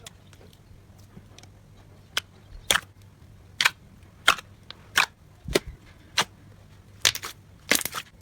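Slime being pressed and worked by hand, giving a series of sharp pops and clicks, about ten of them at uneven intervals.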